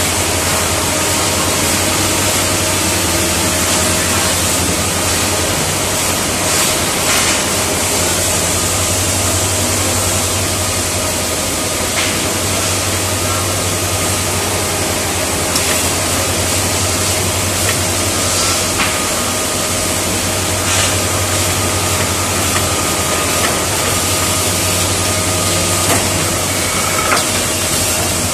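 Liton MHZ1560AX600II automatic finger joint machine line running steadily: motors, belt conveyors and roller tables moving wood blocks, with a constant low hum and a few sharp clicks and knocks.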